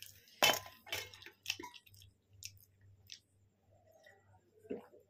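A person eating, heard up close: chewing and mouth clicks as a few short separate sounds, the loudest about half a second in, then drinking from a glass near the end.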